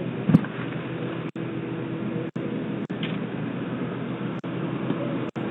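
A steady mechanical hum under background noise, heard through a doorbell camera's microphone with about five brief dropouts. One dull thump comes shortly after the start.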